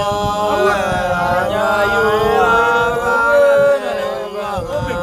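Otuho (Lotuko) song: a voice chanting long, held notes that slide up and down in pitch.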